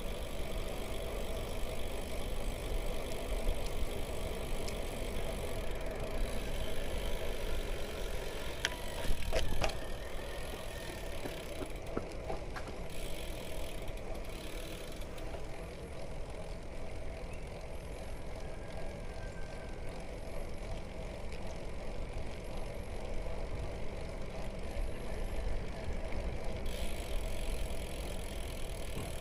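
Steady rush of wind on the action camera's microphone, with a road bike's tyres rolling on asphalt. A few sharp clicks and a brief knock about nine to ten seconds in.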